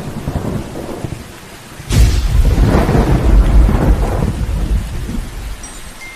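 Thunderstorm sound effect: rain hiss and low rumbling thunder, then a sharp thunderclap about two seconds in that rolls on as a heavy rumble and slowly fades away.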